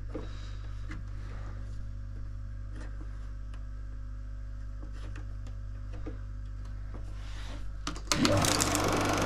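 Steady low electrical hum from a sound film projector's sound system, with faint light ticks. About eight seconds in, a much louder, steady mechanical running noise with a rattle starts suddenly, as the projector runs.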